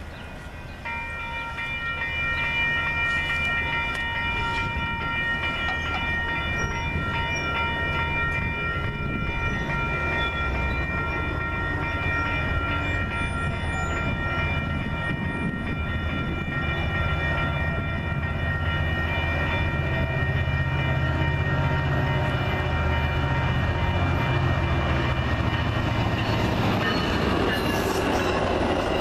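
Railroad grade-crossing warning bell starts about a second in and rings steadily, then fades out near the end. Under it, the low rumble of an approaching Metra commuter train builds and swells into the noise of the train reaching the crossing.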